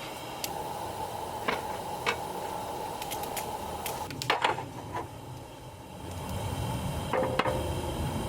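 Scattered light knocks and clicks of objects being handled, the loudest cluster about halfway through. They sit over a steady hiss that gives way to a low rumble about six seconds in.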